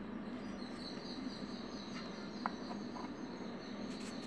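Faint background noise: a steady high-pitched whine and a low hum, with one soft click about two and a half seconds in.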